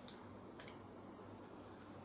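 Near silence: room tone with a faint steady hum, and one faint click about half a second in.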